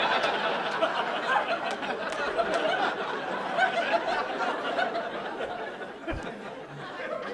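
Comedy club audience laughing after a punchline, the laughter easing off over the last couple of seconds.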